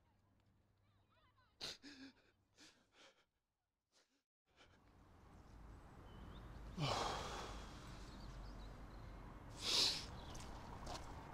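A few faint breaths in near silence, then a steady low outdoor ambience fades in. A heavy sigh comes about seven seconds in and another breathy exhale near ten seconds.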